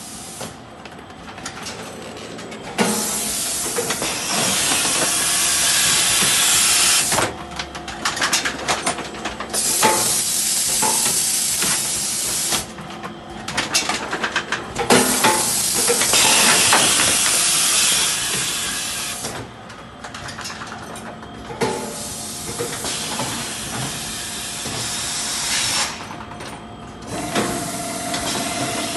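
Automatic rotary packaging machine for premade bags running: three long hissing bursts of several seconds each, with mechanical clicks and clatter between them and a quieter hiss near the end.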